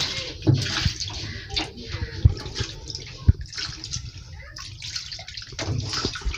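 Water sloshing and pouring from a steel bowl over raw fish heads in a stainless steel basin, rinsing them clean. Several sharp knocks of the steel bowls are scattered through it.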